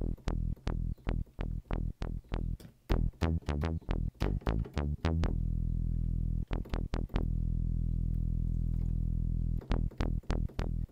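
Software synthesizer bass from Logic's Alchemy: a sawtooth oscillator through a low-pass filter whose cutoff an envelope sweeps shut with a short decay. Each note opens bright and quickly turns dark. It plays a run of short plucked bass notes, then one low note held for about four seconds, then a few more short notes near the end.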